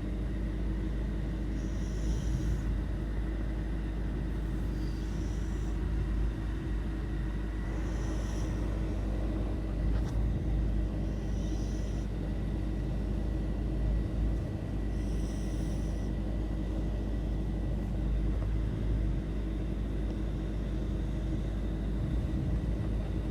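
Shih tzu snoring: a steady low rumble with a faint breathy hiss about every three to four seconds through the first two-thirds.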